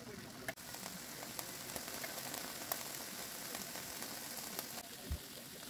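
Steak strips and diced home fries sizzling in a cast iron skillet: a steady frying hiss with scattered sharp pops and crackles. A single soft low thump sounds near the end.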